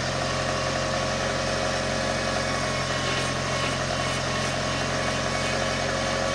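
Car engine idling with a steady whine from the power steering pump, an abnormal noise that the owner takes for a faulty pump.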